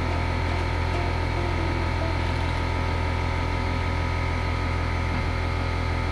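Air compressor running with a steady, unchanging motor hum, keeping pressure up for an air impact wrench.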